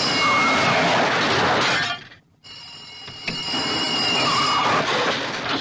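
Film soundtrack of cars speeding through a chase: engine and tyre noise with steady high ringing tones over it. It cuts out sharply just over two seconds in, then resumes.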